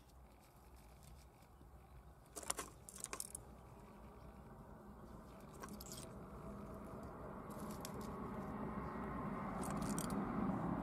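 Small wood fire of split kindling catching: sharp crackles and clicks of dry sticks, a cluster about two and a half seconds in and a few more later, over a low rushing flame sound that grows steadily louder through the second half.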